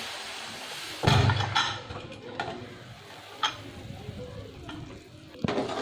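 Aluminium pressure cooker being opened after its pressure has dropped: a short hiss as the weight valve is lifted off, then metal clattering and scraping as the lid is twisted free, with a few sharp clicks.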